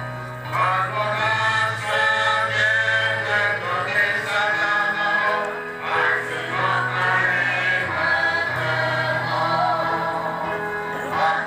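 Choir singing a hymn in harmony, with long held notes.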